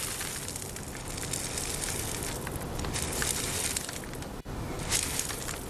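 Aggregate scraped up with a hand scoop and poured into a plastic bucket, a continuous gritty rattle of stones, louder around three seconds in and again about five seconds in.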